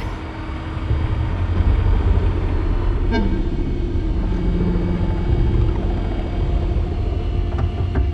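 Car engine running with a deep, steady low rumble.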